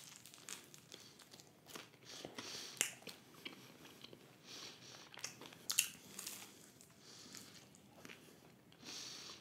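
A person biting and chewing a crisp veg taco: faint crunches and mouth clicks, with a few sharper crunches every few seconds.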